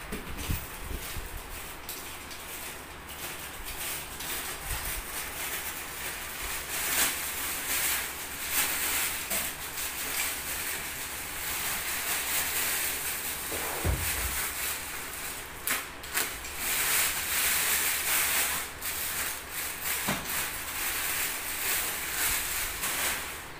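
Plastic wrapping crinkling and rustling as a small amplifier is lifted out of its cardboard box and unwrapped, with a few dull knocks of the box and unit being handled.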